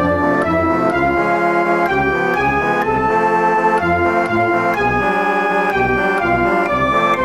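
Background music: sustained organ-like keyboard chords changing about every half second over a pulsing bass line.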